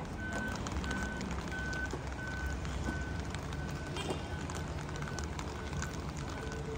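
An electronic beeper sounding short beeps at one pitch, about one and a half a second, over a steady low rumble of street noise.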